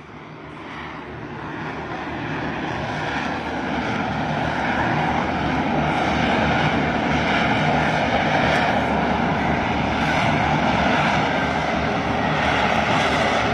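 Jet roar from an F-35B's F135 turbofan engine, swelling over the first few seconds and then holding steady and loud.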